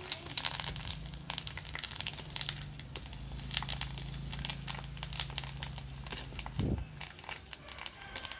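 Curry leaves frying in hot oil in a clay pot, spluttering with many quick, irregular crackles and pops as the tempering cooks.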